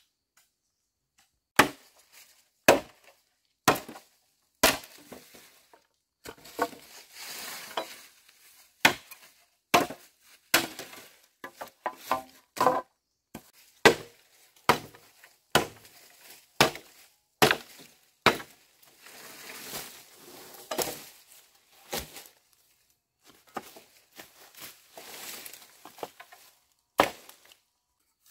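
Dry dead branches cracking sharply again and again as they are broken up, about once a second at first and then irregularly, with dry leaf litter rustling between the cracks.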